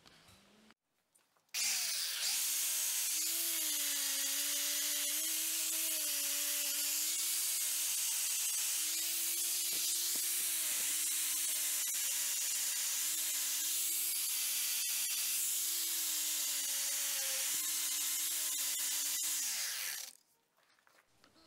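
Angle grinder with a wire cup brush running on the twisted steel handle of a forged railroad-spike knife, scouring off scale. It is switched on shortly after the start and runs with a steady motor hum whose pitch wavers slightly, over a loud wire-on-steel hiss, then spins down near the end.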